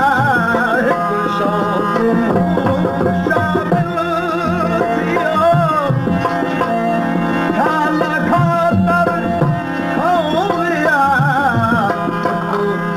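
Sindhi Sufi devotional music (kalam): tabla keeping time under a wavering, ornamented melody, over steady held drone tones.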